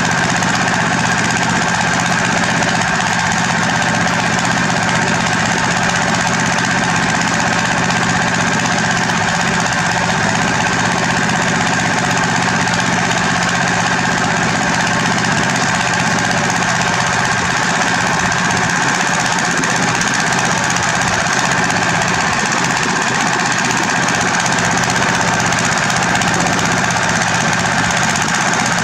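Diesel engine of a heavy construction machine running steadily under load, a constant mechanical drone with a steady higher whine and no let-up.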